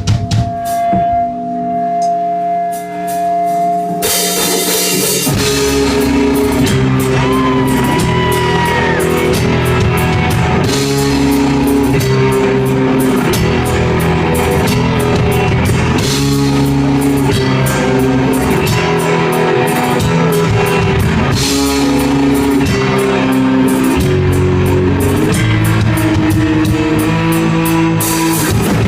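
Punk rock band playing live. A single held guitar note rings for the first few seconds, then drums, bass and distorted guitars come in together about four seconds in and drive on at a fast, steady beat.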